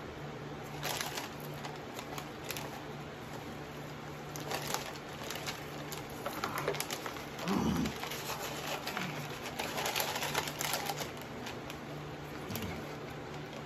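Plastic snack wrapper being handled and opened: crinkling and clicking in spells, with a brief low hummed voice sound about halfway through.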